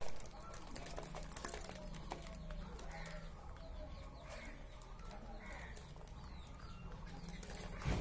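Budgerigars chattering with short, high chirps, over scattered light clicks as they peck at seed in the feeder.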